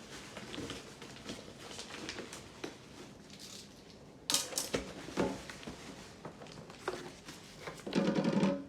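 Unboxing handling noise: plastic packaging rustling and light knocks of parts being taken out and set down, with a sharper crackle about four seconds in and a louder rustle near the end.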